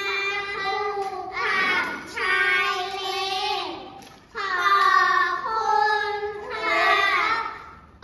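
A few children singing a song together in long held notes, phrase by phrase, with a brief break about four seconds in.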